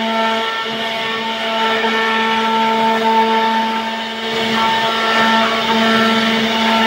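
CNC router spindle milling grooves into a wooden door panel: a steady whining motor tone over the rasp of the bit cutting wood, dipping slightly about halfway through.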